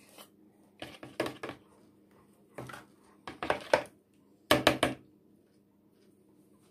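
A metal spoon knocking and scraping against a plastic mixing bowl while sour cream is scooped into egg batter, in four short clusters of taps, the loudest near the end.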